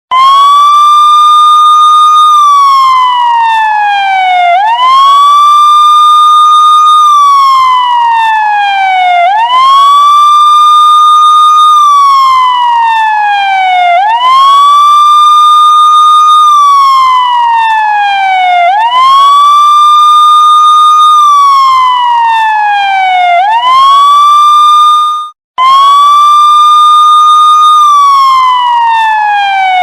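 Police siren wailing: each cycle rises quickly, holds its high pitch for about two seconds, then falls slowly, repeating about every four to five seconds. It cuts out briefly at the very start and again about 25 seconds in.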